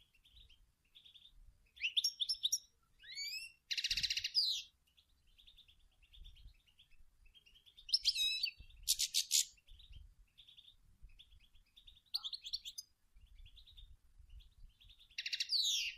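European goldfinch singing: phrases of quick, liquid twittering and chirps, with a harsh buzzy note about four seconds in and another about nine seconds in, and softer chatter between the phrases.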